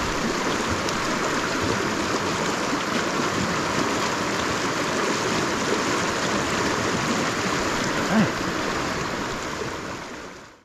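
Mountain river water running steadily, fading out near the end.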